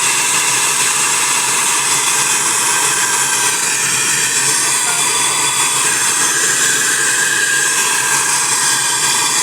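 Gas torch flame hissing steadily as it heats the plastic around a washing machine's transmission to free it from the basket hub.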